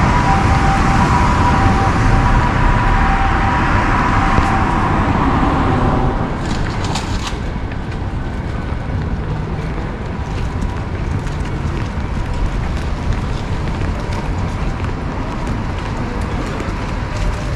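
City street traffic: cars passing through an intersection, with a steady faint tone over the road noise. About six seconds in it drops to quieter street ambience with scattered light clicks.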